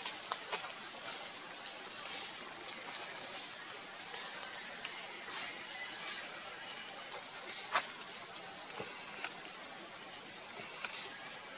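Insects chirring in a steady high-pitched drone, with scattered faint clicks and one sharper click about eight seconds in.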